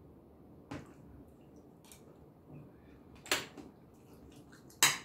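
A metal spoon tapping and scraping on a dinner plate while eating: a few short, sharp clicks spread over the seconds, the loudest near the end.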